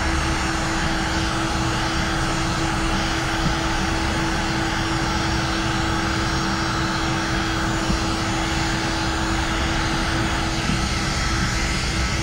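Electric heat gun blowing steadily, its fan a constant whirring rush with a steady hum, as it heat-shrinks ceramic tint film to fit the curved rear windshield. The hum drops out near the end while the rush goes on.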